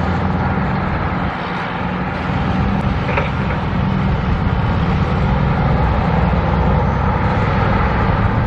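Heavy diesel engine running steadily close by, a low drone over the rush of road traffic, with a brief sharp click about three seconds in.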